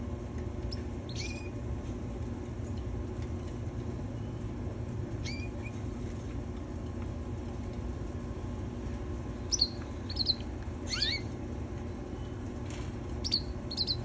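Domestic canaries giving short, high chirps: a single one every few seconds at first, then a run of quick calls in the second half, one of them gliding downward. A steady low hum runs underneath.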